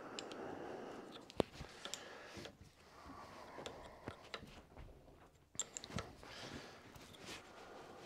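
Faint, scattered metallic clicks and light scraping of an open-ended spanner working the flange nuts on a bronze steam valve, with soft handling rustle between them.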